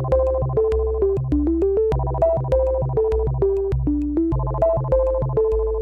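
Electronic background music: a synthesizer melody of short held notes stepping up and down over a bass line, with a steady ticking beat.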